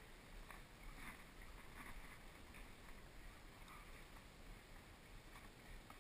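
Faint crunching of a horse biting and chewing a carrot, a few soft irregular crunches over a low background hum.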